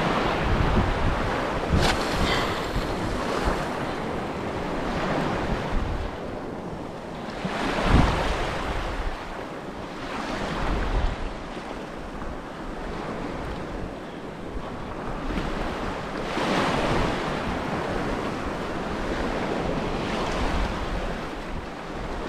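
Small sea waves washing over a shallow rocky shoreline, swelling and ebbing every few seconds, with wind rumbling on the microphone.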